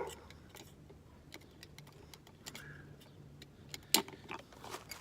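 Scattered light clicks and taps of small camping gear being handled and set down, with one sharper click about four seconds in.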